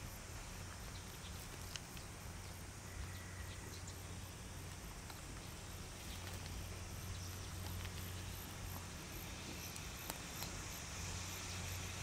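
Faint outdoor summer ambience: insects trilling high-pitched in a pulsing rhythm, several pulses a second, over a steady low hum, with a faint hiss swelling slightly near the end.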